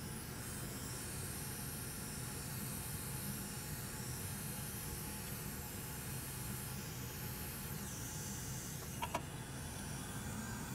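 Steady hiss of a hot-air rework station blowing on a circuit board to desolder a surface-mount connector. Two small clicks about nine seconds in.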